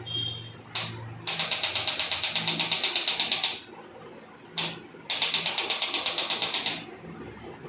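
Electric percussion massager running in two bursts of about two seconds each, a rapid even rattle of about nine taps a second, each burst set off by a brief blip.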